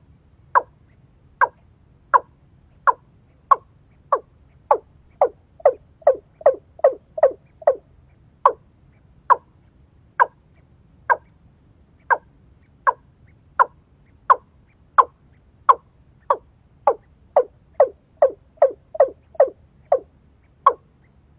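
A bird calling over and over: short notes that drop in pitch, about one to two a second, twice speeding up into quicker runs.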